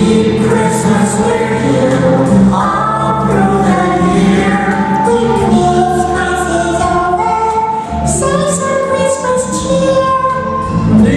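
A group of voices singing a song together with instrumental backing, in a stage-show musical number.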